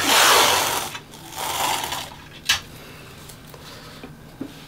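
Masking tape being peeled off the side of a guitar neck: a long tearing rip through the first second, a shorter one about a second and a half in, then a single light click.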